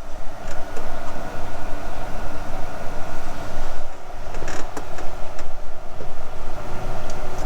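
A 10mm socket on an extension tightening the plastic coolant reservoir's mounting nuts, giving a few sharp metallic clicks about half a second in, several around the middle, and one near the end, over a loud steady mechanical hum.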